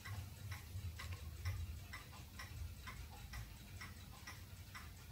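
Faint, regular ticking, about two to three ticks a second, over a weak low hum.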